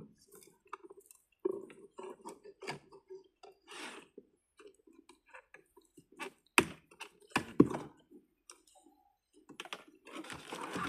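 Scattered clicks and knocks of a DEWALT FlexVolt cordless chainsaw being handled while someone tries to get it undone and started, with two sharp knocks about six and seven seconds in and a brief rustle near the end. The motor is not running.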